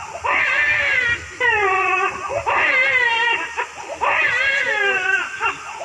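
A man's voice imitating a baby crying: about five drawn-out wailing cries in a row, each about a second long, acting out an infant that will not stop crying.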